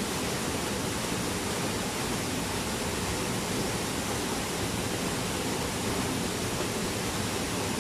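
Steady rush of a waterfall pouring into a pool, an even hiss of falling water.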